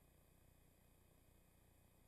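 Near silence: a faint, steady hiss with a thin high tone.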